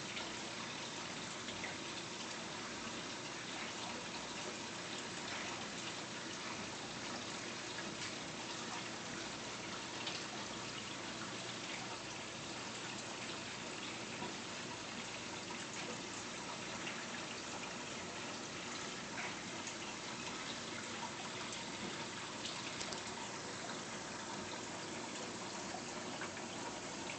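Reef aquarium's circulating water: a steady trickle of moving water with faint scattered ticks.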